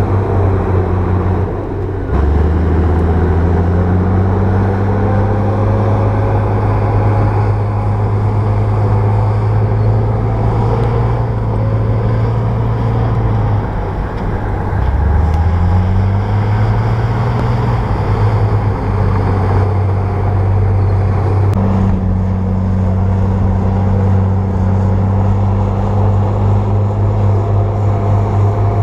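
Bulldozer's diesel engine running steadily under load. Its pitch sags and climbs back twice, about two seconds in and again around fifteen seconds in.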